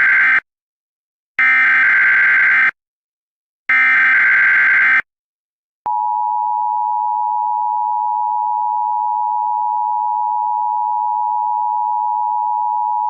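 Emergency Alert System SAME header: harsh, buzzy digital data bursts, each about a second and a quarter long and about a second apart, the tail of one and then two more. About six seconds in, after a click, the steady two-tone EAS attention signal (853 and 960 Hz) starts and holds.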